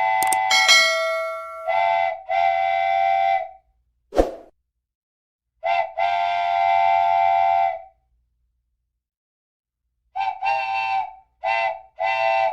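A multi-tone horn, like a train horn, sounding a chord of several steady tones in blasts: long and short blasts at first, a long blast in the middle, and three short toots near the end. A brief falling swoop comes about four seconds in.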